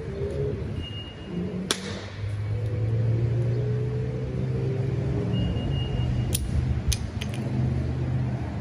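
Sharp knocks of a coconut being struck against a concrete curb to crack it: one about two seconds in, then three in quick succession near the end. Under them runs a steady low engine hum.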